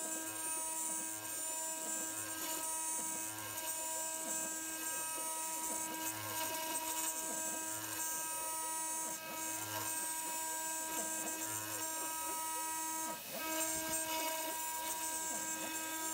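DIY CNC mill's spindle running a coated carbide end mill through aluminium plate: a steady multi-tone machine whine with a low pulse about once a second. The whine dips briefly about 13 seconds in.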